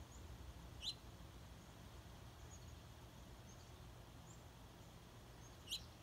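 Two sharp, brief songbird chips, about a second in and near the end, with a few fainter high chips between them, over a faint steady low hum.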